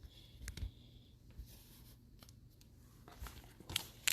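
Faint handling of trading cards and pack wrappers: scattered small clicks and brief rustles, with the rustling picking up near the end.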